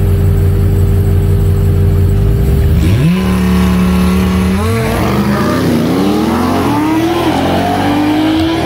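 A Ram TRX pickup's supercharged V8 and a Lamborghini Huracán Evo launching side by side off a drag-strip start line. The engines hold a steady note at the line, then about three seconds in the revs climb sharply. They keep rising in pitch through several gear changes as the vehicles pull away.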